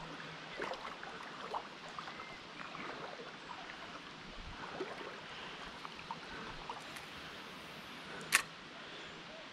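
Steady rush of a river's flowing water, with scattered faint ticks and one sharp click about eight seconds in.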